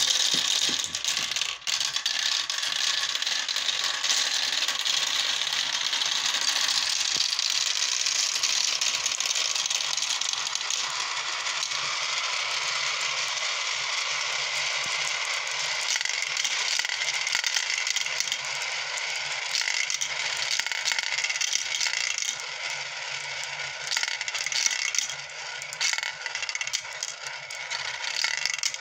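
Marbles rolling and rattling through a plastic marble run, spinning a paddle wheel and circling a funnel bowl: a continuous clattering rattle. Sharper separate clicks come through near the end.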